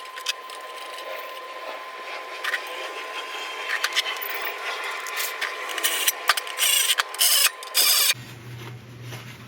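Ratchet clicking and metal tool clatter as small bolts are run into an LS V8 oil pan. Near the end come a few short, loud bursts.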